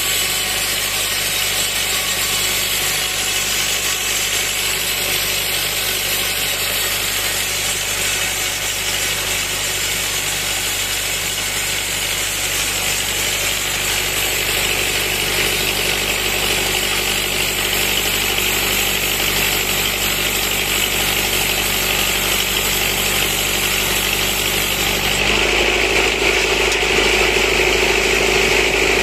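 Tractor-driven sawmill saw cutting through a log, with the tractor's diesel engine running steadily under load to drive it. About 25 seconds in, the sound shifts and gets a little louder.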